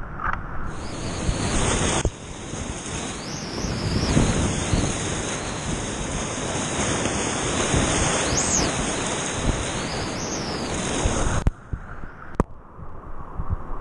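Whitewater rapids of Boulder Creek rushing loudly around a kayak: a dense, steady roar of churning water heard from right down in it. It falls away abruptly near the end.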